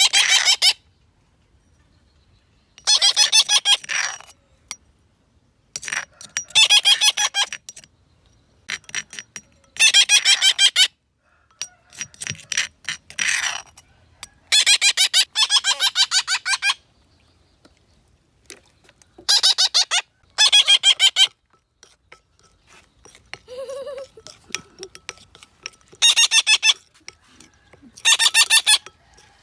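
Young parrots giving harsh, raspy squawks in repeated bursts of one to two seconds, about every two to three seconds, with quiet gaps between.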